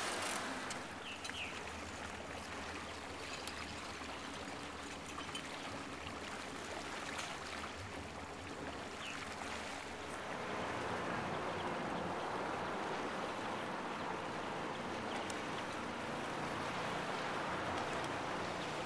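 Water rushing and splashing along the hull of a moving boat, as a steady wash. It grows somewhat louder about ten seconds in.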